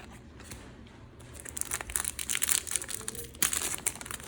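Crinkling and crackling of a Match Attax trading-card foil packet being handled and torn open, starting about a second in.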